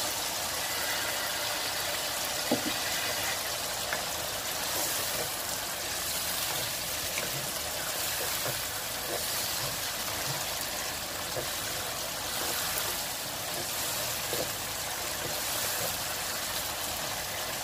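Chicken in a tomato masala sauce sizzling steadily in a nonstick pan, with a few light clicks and scrapes of a plastic spatula stirring it.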